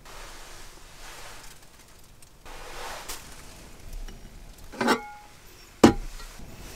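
Handling noises: soft rustling, then a clink that rings briefly and a sharp knock about a second later, like utensils or cookware being set down.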